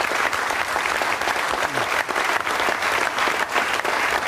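Studio audience applauding, a steady dense clapping of many hands.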